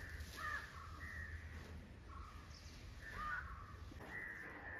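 Crows cawing several times, the calls spaced out over a few seconds, above a low steady rumble.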